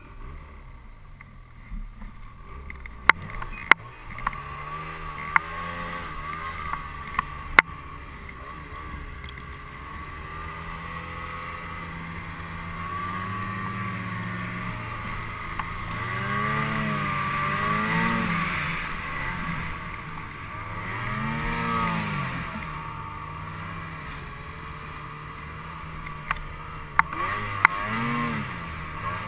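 Snowmobile engine running and revving up and down in several swells as the sled ploughs through deep powder snow. A few sharp knocks stand out above the engine.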